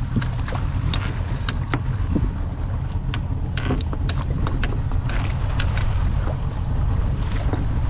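Small fishing boat at sea: a steady low rumble with wind buffeting the microphone, and frequent short, sharp clicks and knocks.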